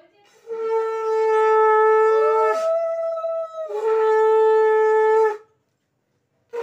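Conch shell (shankha) blown in one long steady blast: the low note jumps briefly to a higher note in the middle, drops back, and stops about five seconds in.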